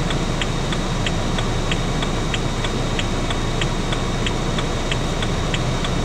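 Car engine idling steadily, heard from inside the cabin, with the indicator relay ticking evenly at about three ticks a second.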